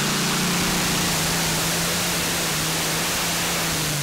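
Twin methanol-fuelled Rolls-Royce V12 engines of a Heavy Modified pulling tractor running flat out under full load as it drags the pulling sled: a loud, dense, steady roar with one held engine note.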